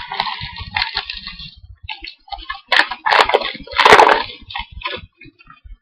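Topps Prime trading cards and their packaging being handled: rustling, crinkling and light clicks, with two louder crinkling bursts about three and four seconds in.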